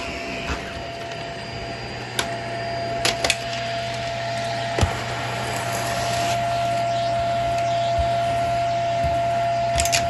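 A Shark vacuum cleaner running as it is pushed over a rug: a steady motor hum with a high whine. A few sharp clicks come between about two and five seconds in.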